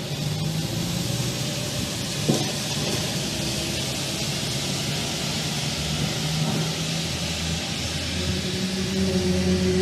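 Low, steady drone of several held tones over a broad hiss, with a short click about two seconds in and the tones growing stronger near the end: one of the unexplained humming sounds recorded as 'strange sounds from the sky'.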